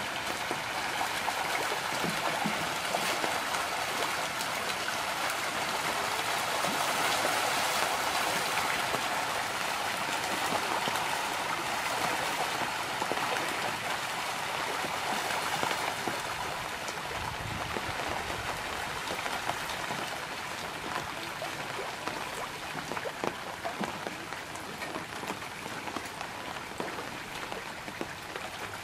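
A shoal of pangasius catfish thrashing and splashing at the pond surface as they take feed, a dense continuous splashing. It is loudest in the middle and thins toward the end, where single splashes stand out.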